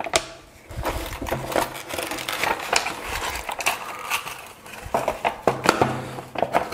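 Cardboard box and plastic packaging tray handled: rustling, scraping and repeated small clicks as an H0 model locomotive is slid out and lifted from its box.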